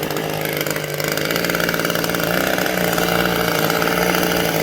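Small engine running steadily at high speed, its pitch stepping up slightly about two and a half seconds in.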